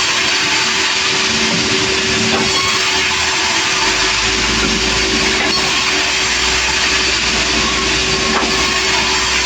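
Sawmill saw running and cutting through a heavy log, a loud steady noise with a constant machine hum; a deeper rumble comes in about four seconds in.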